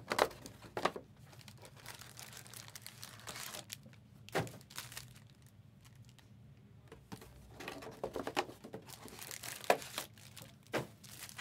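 Plastic trading-card packaging being crinkled and torn open by hand, in irregular crackles. Sharper cracks come near the start, about four and a half seconds in, and several more towards the end.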